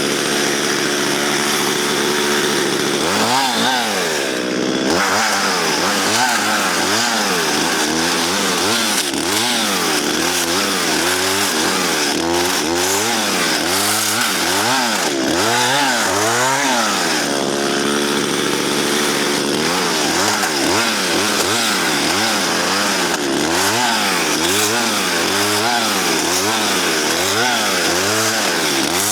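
Chainsaw cutting through spruce wood, its engine pitch rising and falling about once a second as the throttle is worked and the load comes on. The chain is dull and struggles through the wood.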